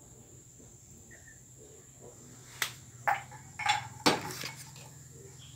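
A quick run of four or five sharp knocks and clicks about halfway through, the last the loudest, over a faint steady hum and a thin high whine.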